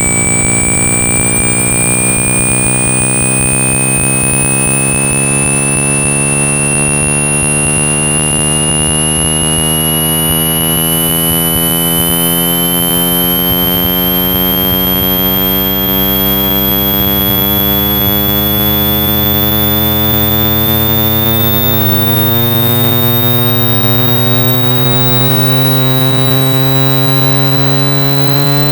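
Synthesized speaker-cleaning test audio meant to shake trapped water and dust out of a phone speaker: a steady low hum under a stack of tones that all rise slowly in pitch together, with a thin high whistle climbing slowly and a hiss of noise beneath.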